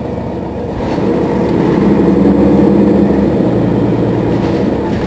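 Mercedes-Benz Citaro city bus engine idling steadily. It grows a little louder for a couple of seconds in the middle, and its low note changes about three and a half seconds in.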